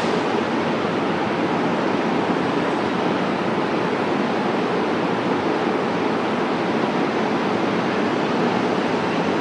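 Steady, even rushing noise from a KTM Komuter electric train standing at the platform with its on-board equipment running, carrying under a large station train-shed roof.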